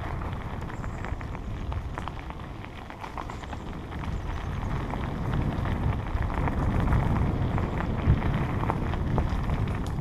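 Bicycle tyres rolling over a packed dirt trail: a steady crackling hiss full of small clicks and rattles from the bike, over a low rumble of wind on the microphone. It grows louder towards the middle, with a sharp knock about eight seconds in.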